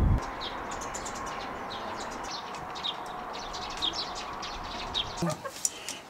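Small birds chirping, short high calls scattered through, over a steady outdoor hush.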